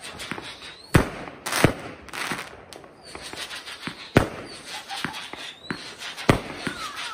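Fireworks going off: sharp bangs about a second in, just after four seconds and about six seconds in, with smaller pops and crackling between them.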